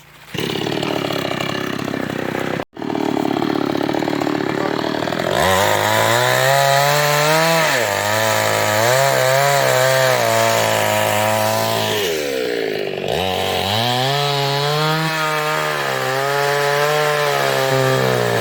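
New West 588 two-stroke chainsaw running hard, cutting teak wood. Its engine note wavers as the load changes, and about 12 seconds in it sags sharply and climbs back. Before the engine comes in loud, about five seconds in, there is a rougher, noisier run of the saw.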